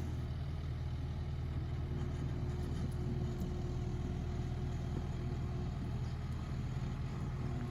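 Takeuchi skid steer's diesel engine running at a steady pitch, with no revving.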